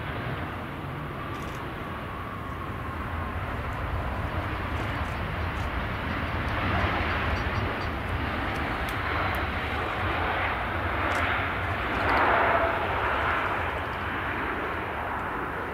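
Boeing 737 airliner touching down and rolling out on the runway, its jet engines swelling to a loud roar as it slows, loudest about seven and twelve seconds in.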